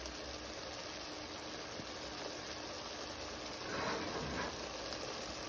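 Okra, onion and tomato sizzling softly and steadily in oil in a pot on very low heat, with a brief louder swell about four seconds in.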